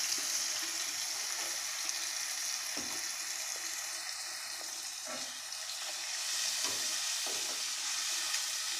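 Spiced onion-tomato masala sizzling in hot oil in a non-stick kadhai as chicken stock is poured in, while a spatula stirs it, with a few knocks and scrapes of the spatula against the pan.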